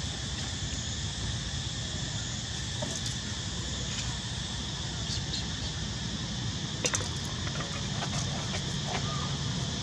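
Steady outdoor background: a high, even insect drone over a low rumble, with a couple of light clicks about seven seconds in.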